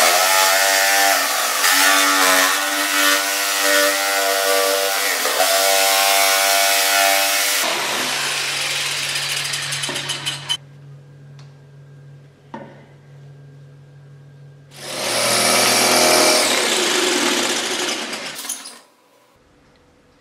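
Bosch jigsaw cutting a wooden board, its motor whine wavering in pitch as the blade loads up. The cutting stops about ten seconds in, leaving a low, quieter hum, then starts again for about four seconds and cuts off shortly before the end.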